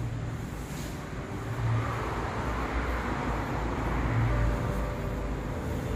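Road traffic noise from moving vehicles, with a low engine hum that swells and fades about every two and a half seconds.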